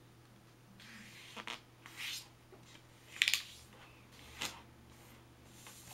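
A sheet of squared paper being folded and creased by hand, fingers rubbing and sliding along the folds in several short strokes, the loudest about three seconds in, over a faint steady hum.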